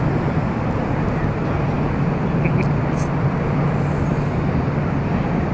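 Steady road-traffic and heavy-engine noise with a low steady engine drone running through it.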